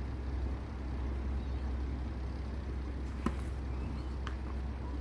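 Steady low outdoor rumble, with two faint sharp knocks about a second apart near the end: tennis ball strikes during a rally on a clay court.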